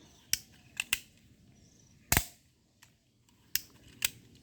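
Toy gun being fired: six sharp pops at irregular spacing, two of them close together about a second in, the loudest about two seconds in.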